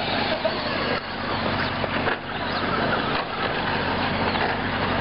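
Radio-controlled short-course trucks racing around a dirt track, a dense, steady noise without pauses.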